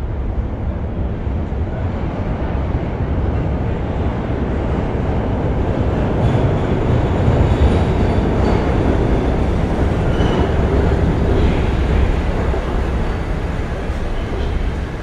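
New York City subway train rumbling through an underground station. The rumble builds to its loudest about halfway through and eases near the end, with faint high wheel squeals.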